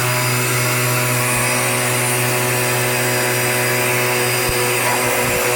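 Dirt Devil Power Max upright vacuum cleaner running steadily: a constant motor hum and whine with a rush of air. Its canister is clogged, here by a shower cap.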